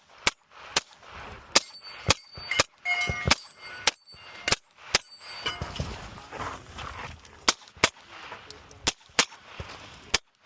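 A string of single pistol shots from a Glock fired at an uneven, unhurried pace, about fifteen in all, with a pause of two to three seconds in the middle. Several shots are followed by a brief metallic ring.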